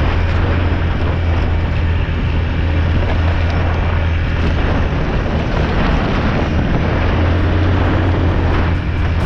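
Off-road vehicle engine running steadily with a deep, even drone, mixed with wind rushing over the microphone.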